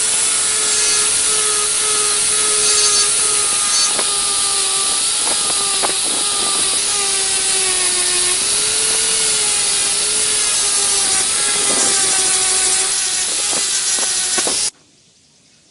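Electric power tool running under load on a workpiece: a harsh, steady rasp over a wavering motor whine, with a few knocks, cutting off abruptly about a second before the end.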